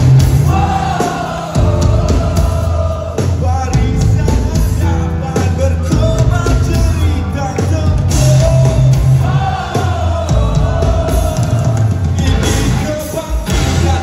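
Live rock band playing at full volume: a lead vocalist singing over distorted electric guitars, bass and a drum kit, recorded on a phone from within the crowd. Two long sung lines stand out, one near the start and one about two-thirds of the way through.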